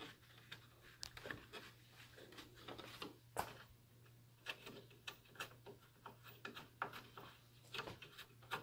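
Faint scattered clicks and rubbing from fingers turning 10 mm bolts by hand into the grille's top mounting holes, with one sharper click about three and a half seconds in. A steady low hum runs underneath.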